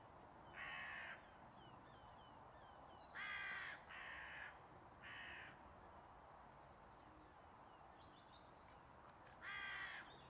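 Crow cawing: five harsh caws, one about half a second in, three in quick succession between about 3 and 5.5 seconds, and one more near the end.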